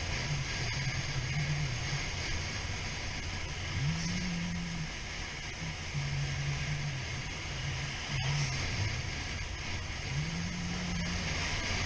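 Suzuki SV650 V-twin motorcycle engine running under way, its pitch rising and holding, then dropping back several times as the throttle is opened and closed, over a steady rush of road and wind noise.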